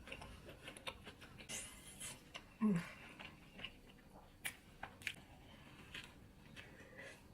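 A person chewing food close to the microphone, with scattered wet mouth clicks and soft crunches. About two and a half seconds in comes a brief low hum, the loudest sound.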